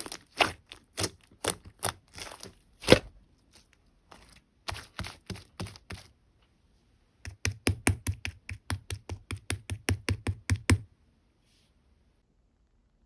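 Slime being squeezed and poked by hand, giving a series of sharp squishy clicks and pops. After a short pause comes a faster, even run of about five pops a second.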